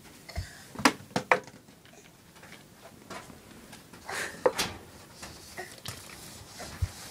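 A toddler knocking and rustling things: three sharp taps about a second in, then a rustle and one more sharp tap past the middle, with a soft low thump near the start and another near the end.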